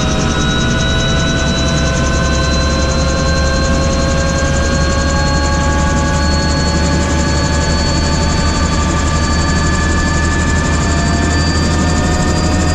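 Helicopter in flight: a steady, loud low drone from the rotor and engine, with several whining tones that slowly rise in pitch.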